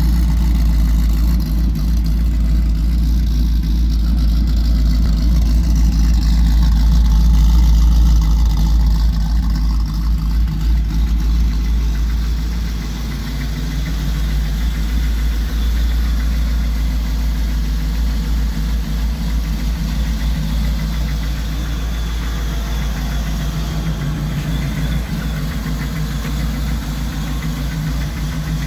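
Ford Lightning pickup's V8 engine idling steadily, with a deep low rumble; the level eases off slightly about halfway through.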